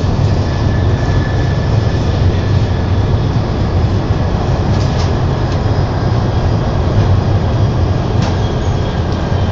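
TGV Duplex high-speed train running at speed, heard from inside the carriage: a steady, loud low rumble with a rushing hiss over it, and a couple of faint ticks about five and eight seconds in.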